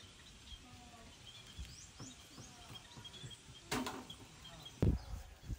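Outdoor background with small birds chirping; just under four seconds in comes a brief scuffing noise, then a low thump about a second later, as the macaque shifts and moves on the tree.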